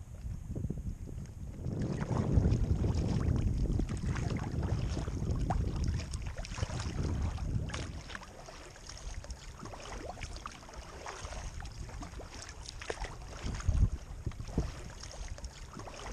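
Wind rumbling on the microphone and water splashing against a kayak for the first half. After that it settles to small splashes, drips and lapping of choppy water at the hull, with one louder splash near the end.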